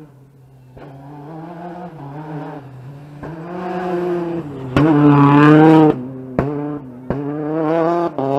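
Rally car at full throttle on a gravel stage, its engine growing louder as it approaches and loudest as it passes about five seconds in. The engine note breaks off sharply several times, as at quick gear changes.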